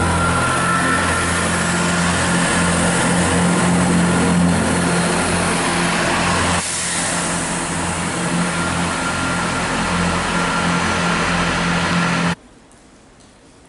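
Chiltern Railways diesel multiple unit's underfloor engines running steadily as the train moves along the platform. The engine sound dips slightly about halfway through and cuts off suddenly near the end, giving way to a much quieter background.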